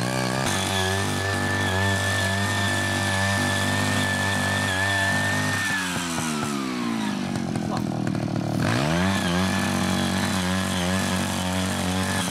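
CY80 mini cultivator's small engine running at speed as its 10-blade rotary tines till the soil. The engine slows to idle about six seconds in and revs back up about three seconds later.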